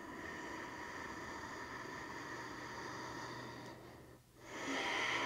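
Slow, soft breathing through the nose. One long breath lasts about four seconds, there is a short pause, and the next breath begins near the end.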